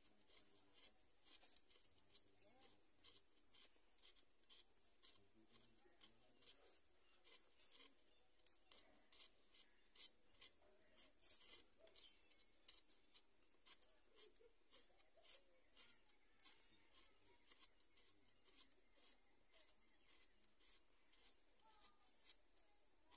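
Faint, quick scraping strokes of a blade peeling potato skin, a few strokes a second.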